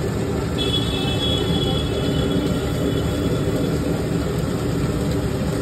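Steady low rumble of street noise, with a faint high whine from about half a second in to about three and a half seconds in.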